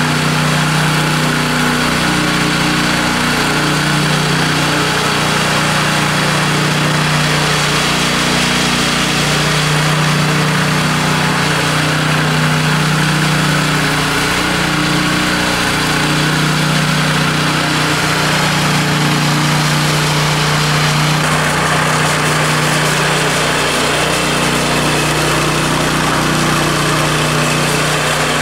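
Petrol engine of a walk-behind TR 950 power trowel running steadily under load as its rotating blades smooth a fresh concrete floor slab.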